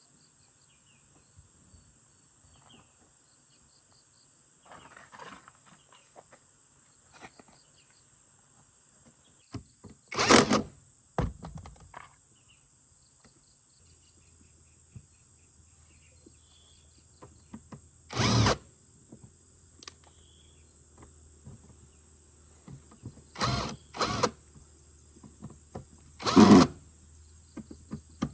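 A power drill-driver running in short bursts of about half a second, six times, with long pauses between. A faint low hum comes in about halfway through.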